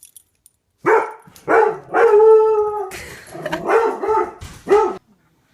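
A dog barking and howling in a run of about half a dozen calls, starting about a second in; the longest is a drawn-out howl a little past two seconds.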